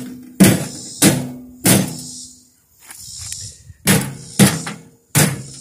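Hammer blows on a stuck screw in a microwave oven's sheet-metal chassis, struck to turn it loose so the transformer can come out. Six sharp strikes come in two sets of three with a pause between, each followed by a brief metallic ring.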